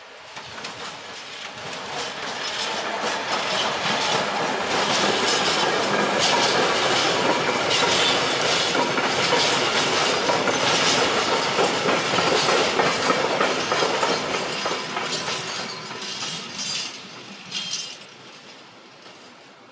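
A freight train of tank wagons hauled by an ÖBB locomotive passes close by, its wheels clattering over the rail joints. The sound swells over the first few seconds, stays loud through the middle with many quick clicks, and dies away about two seconds before the end as the last wagon goes by.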